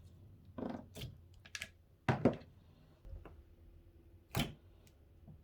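Slime being pulled out of its plastic bucket by hand: a scattered run of short squishes, taps and clicks, the loudest just after two seconds in.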